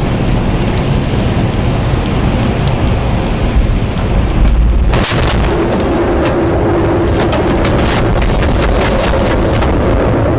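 Heavy rain on a car's windshield and roof, heard from inside the cabin, with a low rumble of thunder about four seconds in. After about five seconds the rain turns sharper, with many separate drops ticking on the glass.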